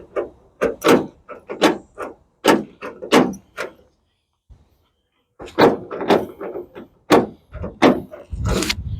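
Newly fitted door lock and latch on a 1980 Dodge B300 cab door being worked with the key as a test: a string of sharp clunks and clicks, a quiet pause of about a second and a half midway, then more clunks.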